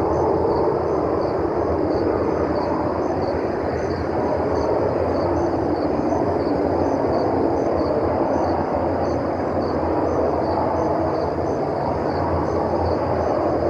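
A loud, steady roar from the clear night sky, a deep rumbling noise with no break in it.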